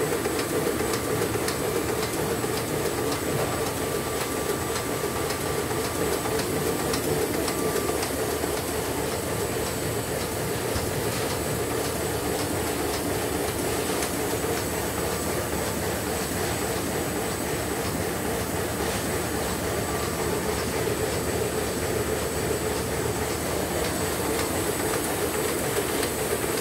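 Five-colour Heidelberg Speedmaster SM 52-5 sheetfed offset press running, a steady mechanical clatter with a thin high whine over it.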